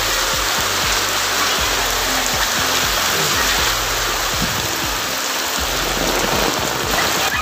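Steady rain falling on a wet concrete path, an even hiss.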